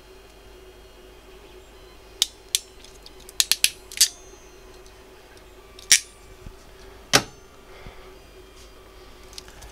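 Ratcheting crimping pliers clicking as an earth crimp terminal is squeezed onto a turntable's ground lead: a quick run of sharp clicks about two to four seconds in, then two louder single clacks a little later.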